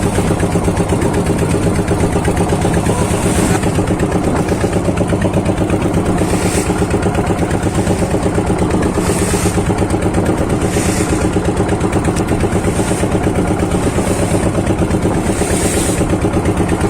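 A boat's engine running steadily under way, an even pitched hum with fine regular pulsing. Brief hissing rushes come every few seconds.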